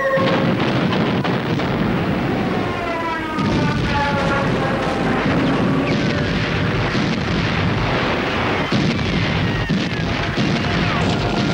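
Battle sound effects: a continuous din of explosions and anti-aircraft gunfire, with falling whistling tones a few seconds in.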